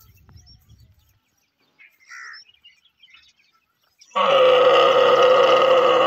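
A young dromedary camel calling: one long, loud, steady call starting about four seconds in, with faint bird chirps before it.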